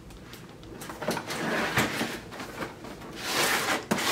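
Cardboard box and packaging being handled: sliding and scraping in two stretches, with a few light clicks and knocks between.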